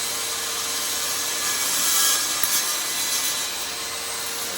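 Power saw cutting lengthwise through a piece of stag antler to split it, the motor running steadily and the cutting noise growing louder about two seconds in.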